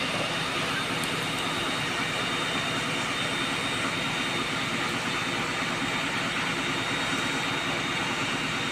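Fire engines running their pumps to feed charged hoses and an aerial ladder: a steady, loud engine drone with a thin, steady high whine over it.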